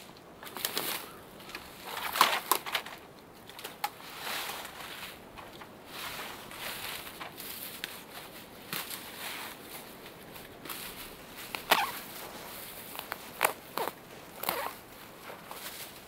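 Dry dead grass rustling and crunching as handfuls are pulled up and gathered, with several short sharp crackles of stems snapping.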